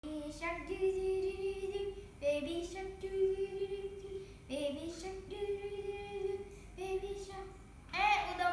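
A young girl singing a simple tune without accompaniment, in several short phrases of long held notes.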